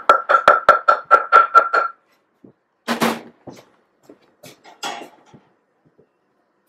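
A clay mortar knocked quickly against the rim of a glazed bowl, about ten ringing knocks at some five a second, to shake out freshly crushed spice seeds. Then a single clatter about three seconds in and a fainter one near five seconds.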